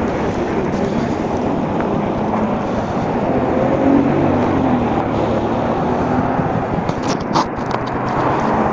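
Motor vehicle engine running steadily, swelling a little about four seconds in, with a few sharp clicks near the end.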